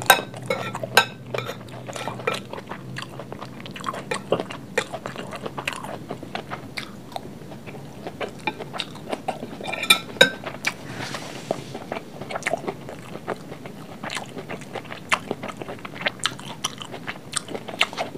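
Close-miked chewing and mouth sounds of someone eating fried rice: many small wet clicks. A metal spoon clinks and rings against a glass plate at the start and again about ten seconds in.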